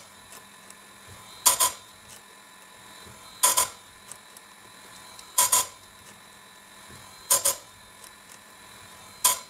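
Electric chainsaw-chain sharpening grinder: the abrasive disc bites a chain tooth in short grinding bursts about every two seconds, five in all, over the faint steady hum of the running motor. The teeth are being ground down to an even height against the machine's depth stop.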